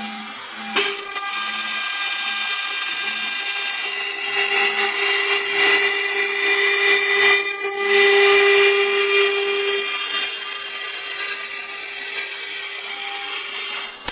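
High-speed CNC router spindle cutting a stone slab under a water-coolant spray: a loud, steady high-pitched whine with a grinding hiss, which comes in suddenly just under a second in after a quieter stretch.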